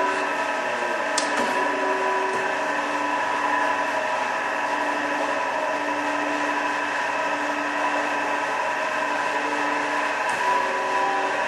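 Amada HA250W hydraulic horizontal band saw running steadily: a machine hum with several steady whining tones from its drive and hydraulics, and a single sharp click about a second in.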